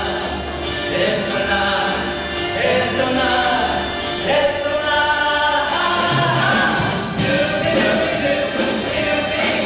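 A group of voices singing an upbeat pop song over a backing track with a steady beat, holding long notes in the second half.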